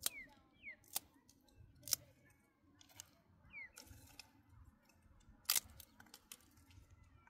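Dry twigs snapping and clicking as they are broken and gathered by hand: a handful of sharp cracks, roughly a second apart, with a gap and then the loudest one about five and a half seconds in.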